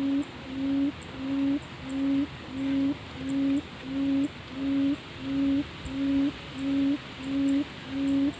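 A Leto field quail gives a series of low hooting calls, one note after another at an even pace of about one and a half a second. Faint high ticking sounds in the background.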